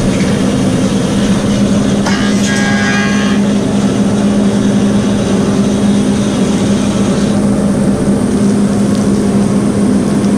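Woodmaster 725 planer running with a steady motor hum while a hardwood board feeds through the cutterhead, with a brief high ringing about two seconds in. The cutting noise eases somewhat past seven seconds as the board clears.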